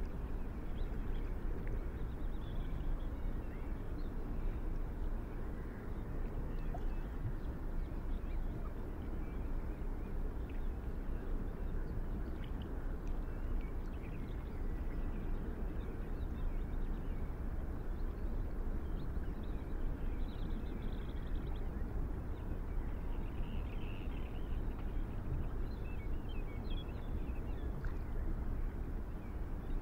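Steady low outdoor background noise, with faint, scattered high chirps over it.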